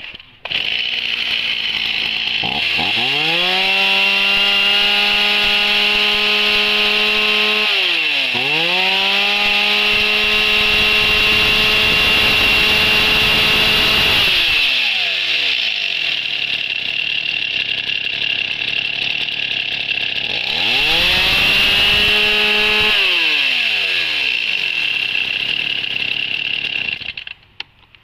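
STIHL 024 AV two-stroke chainsaw running on test: revved up to full throttle three times, with a short dip in the first long rev and a drop back to idle in between. It cuts off shortly before the end.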